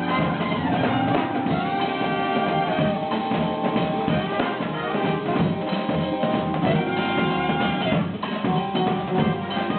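Live band jamming: a drum kit, with kick and snare, plays steadily under sustained pitched instruments.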